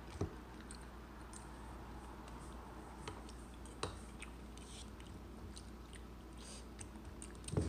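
Faint chewing and mouth sounds of people eating fruit, with a few light clicks of forks on a plate and bowl over a steady low hum. A louder sharp knock comes near the end.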